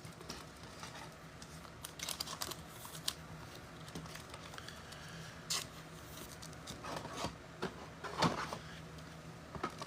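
Trading cards being handled: faint scattered rustles, slides and clicks of cards and pack wrappers, with a few louder snaps now and then.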